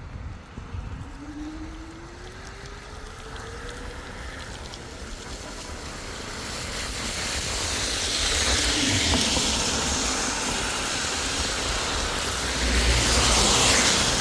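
Traffic on a wet road: a vehicle's tyre hiss swelling as it approaches and passes, loudest with a low rumble near the end. In the first few seconds a thin whine rises steadily in pitch.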